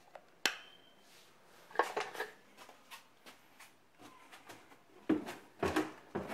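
Footsteps going down basement stairs: irregular knocks and scuffs in short clusters, with a sharp click about half a second in.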